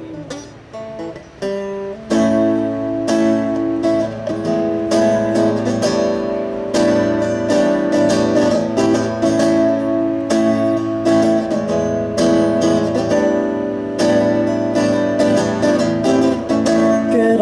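Guitar strummed in an instrumental passage, soft and sparse for the first two seconds, then full, steady chord strumming.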